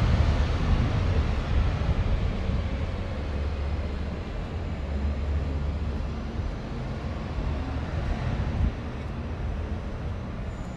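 Street traffic: a vehicle passing fades away over the first few seconds, leaving a steady low rumble of road traffic.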